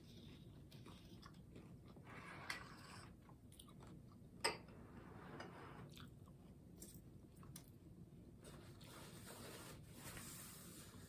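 A person chewing tacos close to the microphone, faint, with a sharp crunch about four and a half seconds in and a smaller one about two and a half seconds in.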